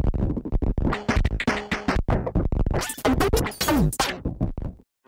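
Electronic music with a fast beat and turntable-style scratching sweeps, which cuts off suddenly near the end.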